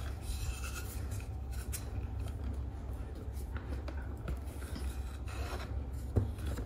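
Irregular rubbing and scraping sounds over a steady low rumble, with a sharper knock near the end.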